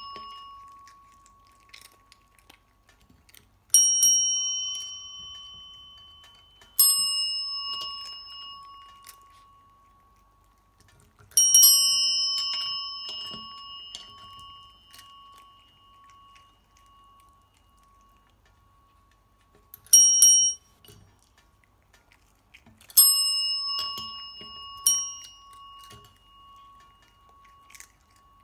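Chrome desk bells (service call bells) struck by the cats' paws, about six rings at uneven intervals, each clear ding dying away over several seconds. One ring, about twenty seconds in, is cut short after half a second.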